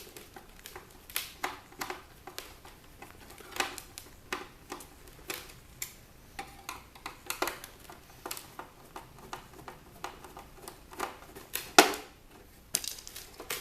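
Irregular clicks and knocks of small plastic and metal parts being handled and pried apart while a miniature CD drive mechanism is dismantled by hand, with one louder knock near the end.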